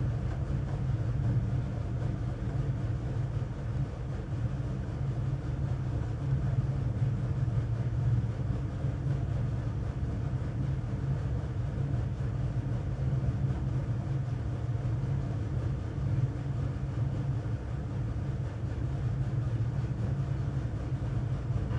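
Steady low hum, unbroken and without speech.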